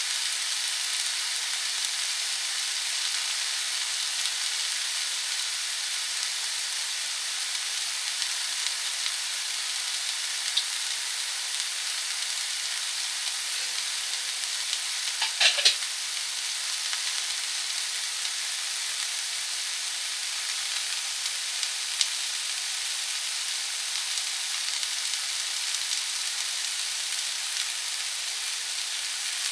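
Green peppers sizzling as they stir-fry in a frying pan, a steady hiss, with a short clatter of the utensil against the pan about halfway through.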